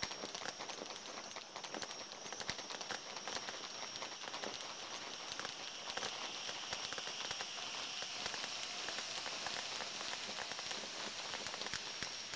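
Distant New Year's fireworks: a dense, irregular run of sharp pops and crackles, over a steady high-pitched whine in the background.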